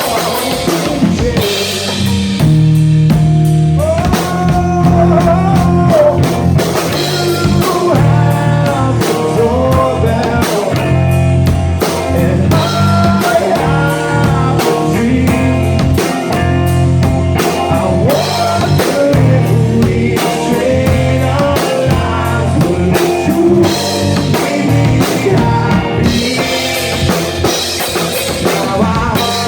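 Rock band playing an instrumental passage between sung verses: drum kit and guitars keep a steady beat, while a melodic lead line bends up and down above them from about four seconds in.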